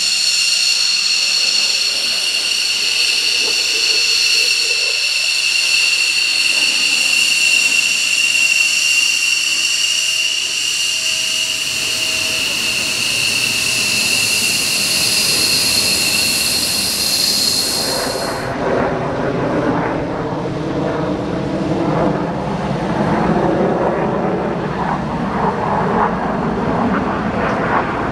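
F-16 jet fighter taxiing at low thrust: its engine gives a steady, shrill whine of several high tones over a rush of jet noise. About two-thirds of the way through this cuts off suddenly, giving way to the deeper, rougher noise of another taxiing jet fighter.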